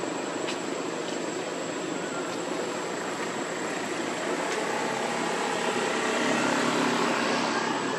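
Steady motor drone that swells slightly about six seconds in, with a thin high-pitched whine held throughout.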